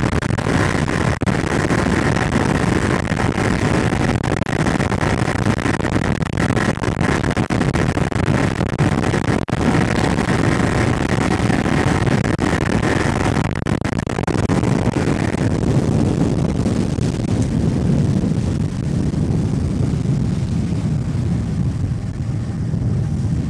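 Yamaha two-stroke outboard motor running steadily with the boat under way, mixed with wind and water noise. The higher part of the sound fades about two-thirds of the way through while the low running sound carries on.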